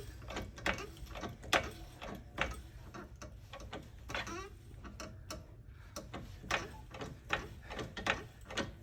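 Irregular mechanical clicks and knocks from a floor jack being worked to raise a car, with a few short squeaks.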